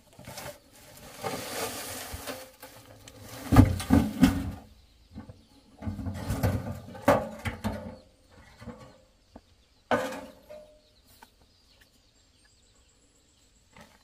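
A heavy woven sack scraping out of a tipped metal wheelbarrow and landing on loose soil with several dull thuds. About ten seconds in comes one sharp clank with a short ring as the wheelbarrow is set down.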